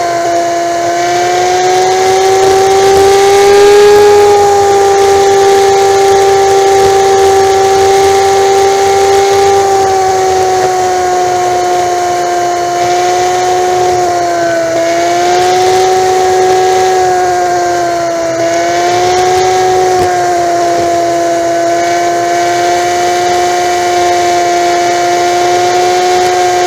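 Honda Magna V4 motorcycle cruising at highway speed: a steady whine that holds its pitch, dipping slightly twice in the second half, over wind and road noise.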